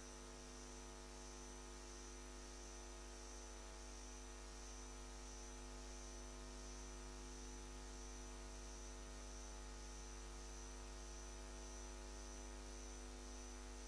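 Low, steady electrical mains hum with a faint high whine above it and nothing else: the idle hiss and hum of an open broadcast audio feed.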